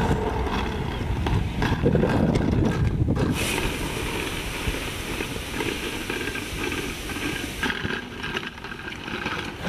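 Wheeled suitcase rolling and rattling over a rough dirt and gravel path. A steady high hiss joins in after about three and a half seconds and stops a little before the end.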